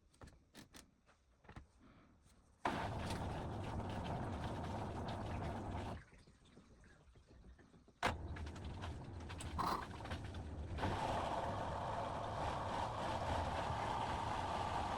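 Beko washing machine running, a steady mechanical whir with a low hum. It starts abruptly after a few faint clicks, cuts out for about two seconds, then starts again with a click.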